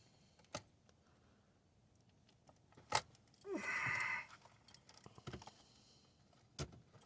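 A few sharp clicks and light metallic rattles from hand tools and small parts being handled while a dashboard module is being unbolted. The loudest click comes about three seconds in and is followed by a brief rattle, with further faint ticks later.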